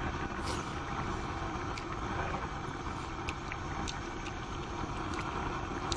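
High-flame LPG burner running with a steady rushing noise, with a few faint clicks.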